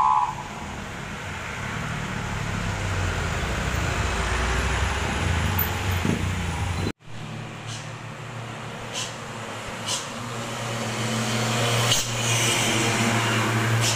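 Road traffic passing on a rain-wet road: car and truck engines with a steady hiss from the tyres. In the second half a heavy truck's engine drone grows louder as it comes past.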